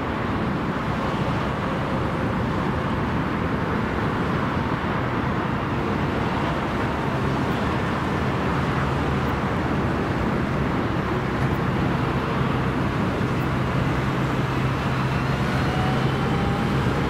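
Jet airliner engines running steadily at high power: a continuous dense engine noise with a low hum underneath, and a faint rising tone near the end.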